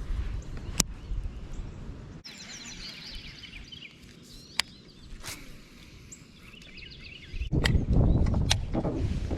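Wind rumbling on the microphone with a sharp click, then about two seconds in it drops away and small birds chirp and sing for about five seconds, with a couple of light clicks. Near the end the low wind rumble returns, louder, with knocks.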